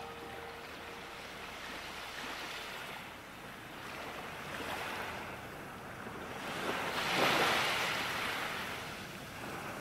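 A rushing noise that swells and fades twice, loudest about seven seconds in.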